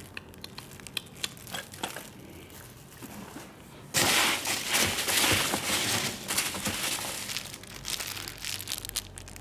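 Loose foam packing peanuts being rummaged through by hand in a cardboard box: a loud, dense rustling that starts suddenly about four seconds in and eases off near the end. Before it come light scattered crinkles of plastic packaging.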